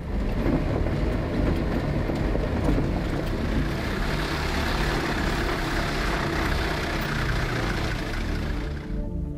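4x4 safari vehicle driving on a dirt track: engine running with tyre and gravel noise, which ends about nine seconds in.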